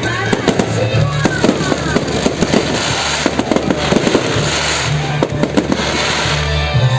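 Fireworks bursting and crackling in rapid, irregular succession, with music playing underneath.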